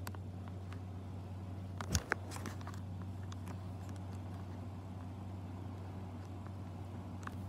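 Steady low hum of room noise, with two sharp knocks close together about two seconds in and a few faint ticks, typical of a phone being handled while it films.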